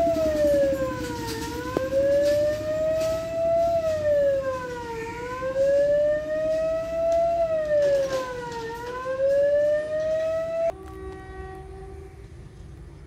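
Level-crossing warning siren wailing: a tone that rises slowly and then drops quickly, repeating about every three and a half seconds. It warns that a train is approaching and the boom barrier is closing. It cuts off suddenly about eleven seconds in.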